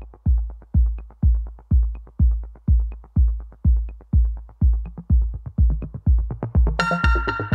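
Electronic background music: a steady kick-drum beat at about two beats a second, with a bright synth chord coming in near the end.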